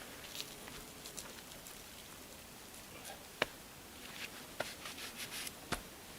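Light scattered rustling with small clicks, as of someone moving about on foot, and two sharp knocks, about a third of the way in and near the end.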